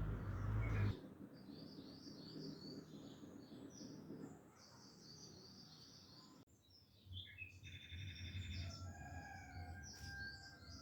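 Birds chirping and twittering, many short calls overlapping. A low rumble runs under the first second and comes back about two-thirds of the way through.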